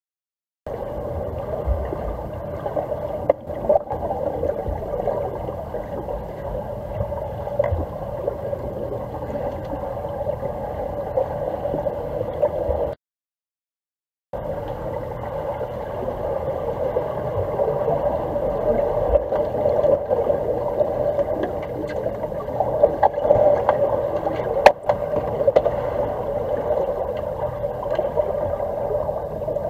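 Swimming-pool water heard through a camera sitting underwater: a steady muffled rushing with scattered sharp clicks and knocks, the sharpest a little before the end. It drops to dead silence for about a second and a half around the middle.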